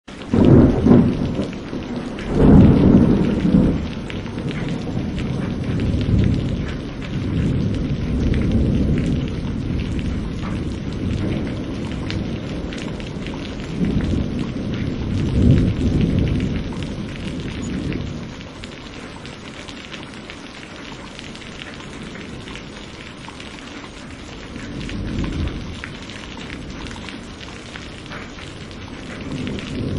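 Steady rain with rolling thunder. The thunder is loudest in two heavy rumbles in the first few seconds, goes on rumbling through the middle, then eases to rain alone after about eighteen seconds before another low roll near the end.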